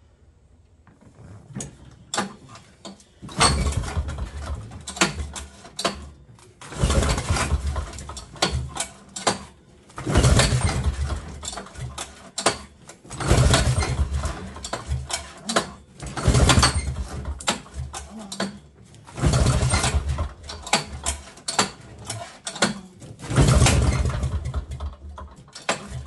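A 1968 Eaton Viking snowmobile's two-stroke engine being pull-started again and again, about seven attempts roughly every three seconds. It catches for a second or two on each pull but does not keep running.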